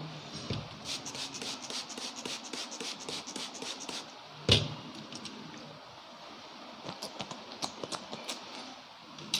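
Hands tapping rapidly on a person's head in a percussive head massage, about five light strokes a second. About four and a half seconds in there is one much louder hit, then a few scattered taps near the end.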